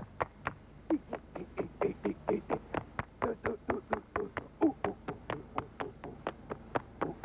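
Fast, even run of sharp hand claps, about five or six a second, some ringing a little lower or higher than others.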